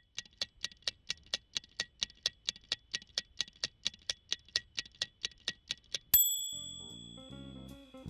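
Title-sequence sound effects: rapid, even clock-like ticking, about five ticks a second, then a single bright bell ding about six seconds in that rings out. Low bass notes of the theme music start under the ringing near the end.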